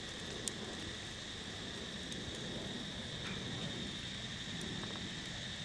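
Steady high-pitched insect chorus, a constant buzzing tone, over a low background rumble, with one short click about half a second in.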